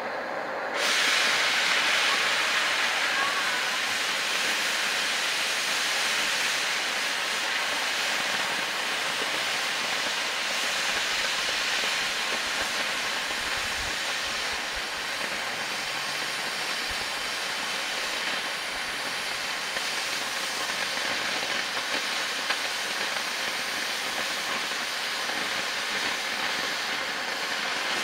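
Oxy-propylene cutting torch hissing steadily as it cuts through 3/4-inch steel plate; the hiss jumps louder about a second in as the cut starts.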